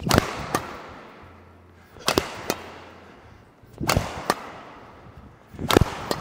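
Badminton rackets striking a shuttlecock in a rally, the near one a Victor Thruster Ryuga II Pro: sharp smacks that come in close pairs about every two seconds, each trailing a hall echo.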